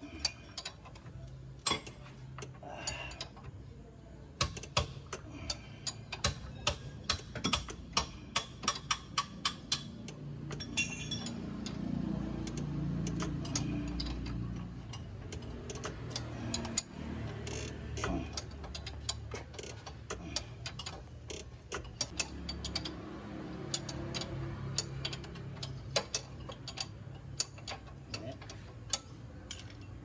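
Hand wrench being worked on the lower ball-joint nut of a Porsche Boxster 986 front suspension: a run of sharp metallic clicks, quick and regular for several seconds, then more scattered. A low steady hum runs underneath and swells for a few seconds in the middle.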